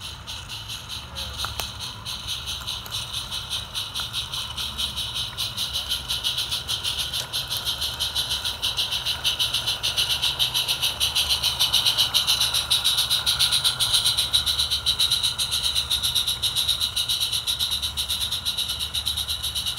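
A Roundhouse Davenport live-steam garden-railway locomotive chuffing as it runs, a rapid, even beat of exhaust puffs with a steady hiss. It grows louder over the first ten seconds or so and then holds.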